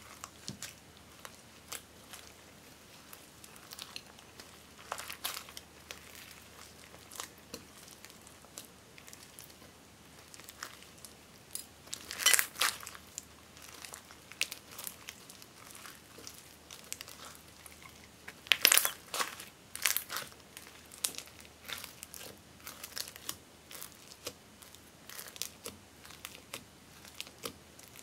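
Hands kneading and stretching slime packed with foam beads, glitter and crushed makeup pieces in a glass bowl: an irregular run of small crackles and crunches, with two louder spells of crackling about 12 and 19 seconds in.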